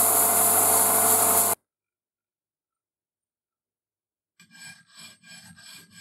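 A metal lathe spinning a small metal fitting with an abrasive cloth strip held against it: a loud steady hiss over the motor's hum, which cuts off suddenly about one and a half seconds in. After about three seconds of silence, a small metal part is rubbed back and forth by hand on a flat abrasive surface, about three strokes a second.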